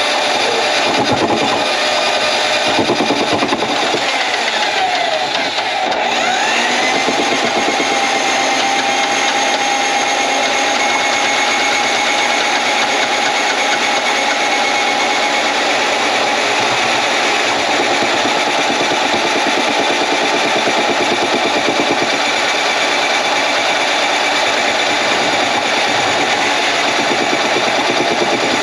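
Motorized drain cleaning machine running steadily while it clears a kitchen drain line clogged with grease; its motor pitch dips and comes back up about five to six seconds in, then holds steady.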